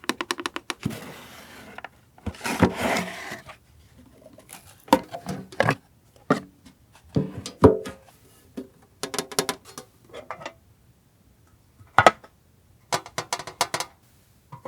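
Paper and plastic stationery goods handled close to the microphone: short bursts of crinkling and rustling with quick taps and clicks, a longer sliding rustle about two seconds in, and a sharp single tap near the end.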